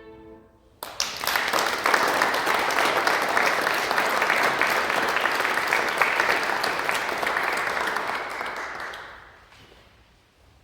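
Audience applauding, starting about a second in and dying away near the end. Before it, in the first second, the last held chord of the violins fades out.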